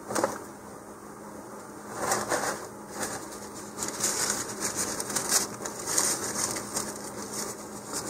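Rustling and scraping of hands working on the model rocket parts, a click at the start and then irregular scratchy bursts from about two seconds in, over a faint steady hum.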